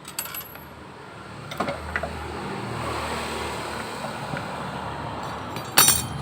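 A few light metallic clinks, then a Honda Beat scooter engine running steadily from about two seconds in, with a short loud clank near the end. The scooter is being checked for a jingling rattle.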